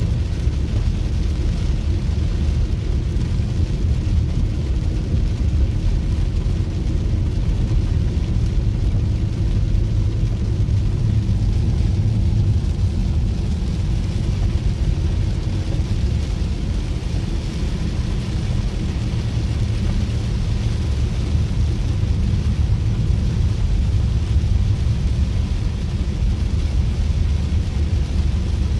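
Steady low rumble of a car driving, with an even hiss of rain and wet road over it.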